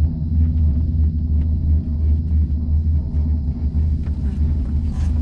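Steady low rumble, like a moving vehicle heard from inside it.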